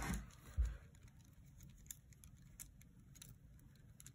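Faint scattered clicks of plastic kandi beads knocking together as a beaded cuff is handled and turned, with two soft low thumps in the first second.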